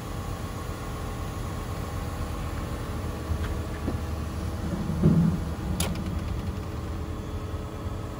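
Cat excavator's diesel engine idling steadily. A few light knocks come a little after three seconds in, then a louder dull thump at about five seconds and a sharp click just after it.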